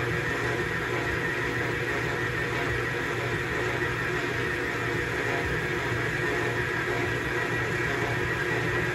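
Electric stand mixer running steadily with its dough hook, kneading pie dough: an even motor hum that does not change.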